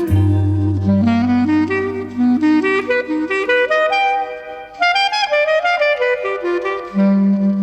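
Instrumental saxophone music, easy-listening style: a saxophone line climbs step by step over a fading bass note, then settles on a lower held note about seven seconds in.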